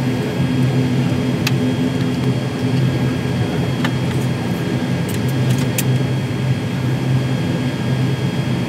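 Pratt & Whitney Canada PW100-series turboprop and its propeller running steadily, heard from inside the ATR 72-600's cabin as a constant low drone with a steady hum. A few light clicks come through in the middle.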